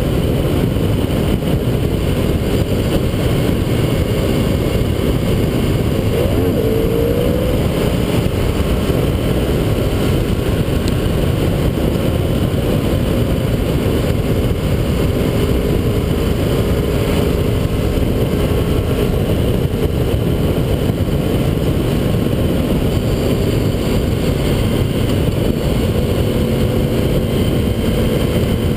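Motorcycle riding at steady road speed: a constant rush of wind and tyre noise at the front wheel, with the engine's note faint underneath and rising briefly about six seconds in.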